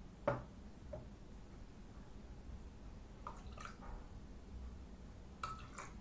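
Coloured liquid poured from cups into a glass, with soft drips and splashes and a sharp knock of a cup against the glass about a third of a second in.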